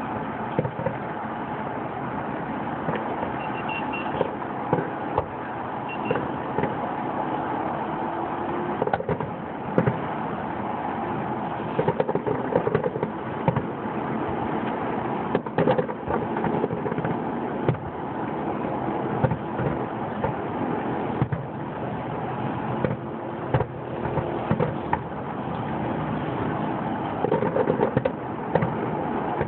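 Fireworks bursting: irregular pops and bangs, with louder clusters about a third of the way in, around halfway and near the end, over a constant rushing background noise.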